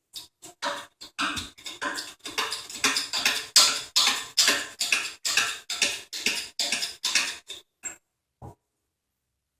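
Fast, even metallic knocking, about three or four strikes a second, as the seized sliding jaw of a bench vise is worked free. It swells in the middle, stops abruptly near the end, and one more single knock follows.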